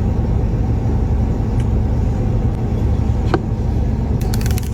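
Steady low rumble of a car, heard inside the cabin. A single click comes about three seconds in, and a quick run of small clicks starts near the end.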